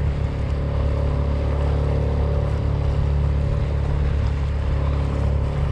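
Boat motor running steadily with an even hum.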